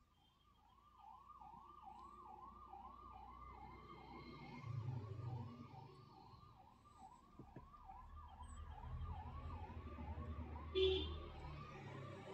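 Faint siren-like yelping tone, rising and falling about twice a second at an even level, over a low rumble that swells twice.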